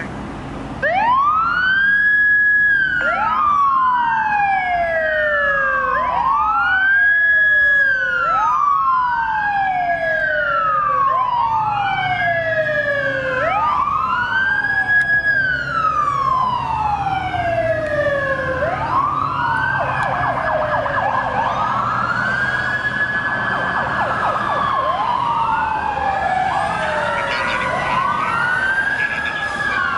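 Fire apparatus siren wailing. Each cycle rises in pitch, holds briefly at the top and slides back down, and the cycles repeat every couple of seconds from about a second in. In the second half a second siren joins, wailing out of step with the first.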